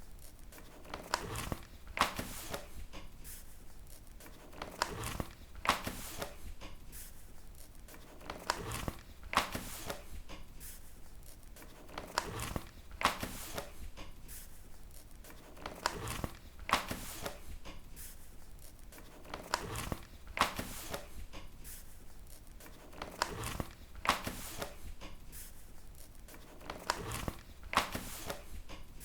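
Paper book pages being turned one after another, each turn a short rustle ending in a crisp flick, coming about once a second at an uneven pace.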